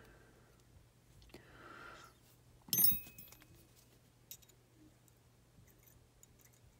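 Small metal clicks and ticks of a pin punch and sear pin being worked into a Taurus PT111 G2 pistol's sear assembly, with a brief scrape about a second and a half in and one sharper, ringing metal clink just under three seconds in.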